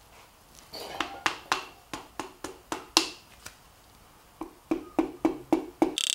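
Sharp taps of a tool handle on a Wiseco forged piston, driving it through a ring compressor into the bore of a Mazda BP engine block. A few irregular taps come first, then after a short pause a steady run of about six taps, roughly three a second.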